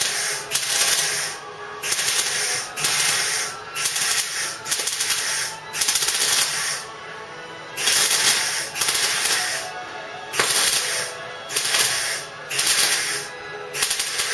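Wire-feed MIG welder laying a butt weld on car body steel in short pulsed bursts of crackling, about one a second with brief gaps. The pulsing lets the weld pool set slightly between bursts so the weld doesn't blow holes in the thin panel.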